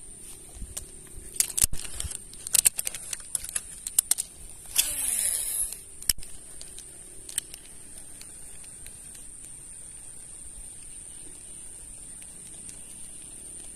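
Clicks and knocks of fishing tackle being handled on a baitcasting reel. Then a cast: about a second of line whizzing off the spinning spool with a falling whine as it slows, ended by a sharp click.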